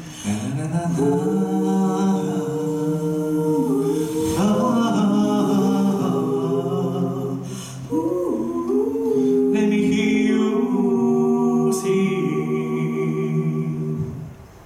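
Five-man a cappella group singing through microphones in close harmony, holding long sustained chords over a steady low bass note, with a few chord changes. The voices cut off together near the end.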